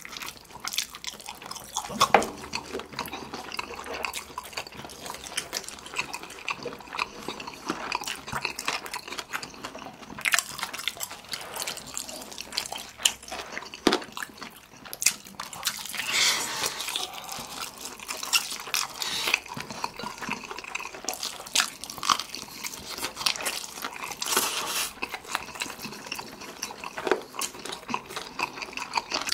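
Close-up eating sounds: Chapagetti black-bean noodles being slurped and sauce-glazed chicken drumsticks being chewed. Many short wet mouth clicks, with a few longer slurps in between.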